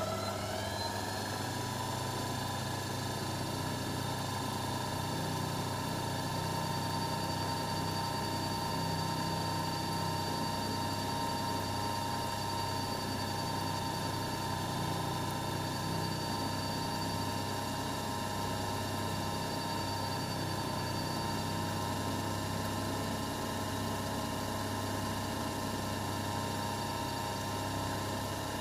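Belt-driven end-mill spindle of a watchmaker's lathe milling attachment running, with its motor and pulleys making a steady whine over a low hum while it mills a watch movement bridge. The pitch rises slightly in the first second, then holds steady.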